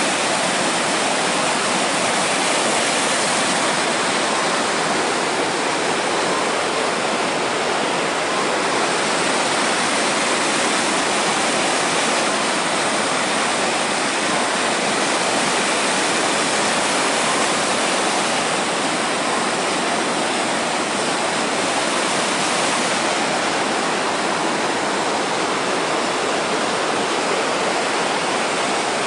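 Fast mountain stream rushing and splashing down small cascades between rocks, a loud, steady, unbroken wash of white water.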